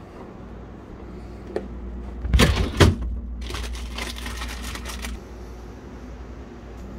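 Refrigerator door and drawer being opened, with a click and then two loud clunks, followed by about two seconds of rustling plastic food packaging as a hand digs through the drawer.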